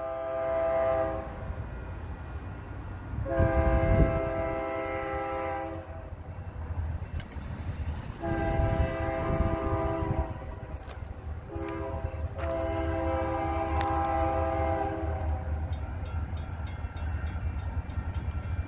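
Approaching Union Pacific GE C44ACM locomotive's air horn, a chord of several notes: one blast fading about a second in, then long blasts about three and eight seconds in, a short one near twelve seconds and a final long one, the long-long-short-long grade-crossing signal. A low diesel rumble runs underneath.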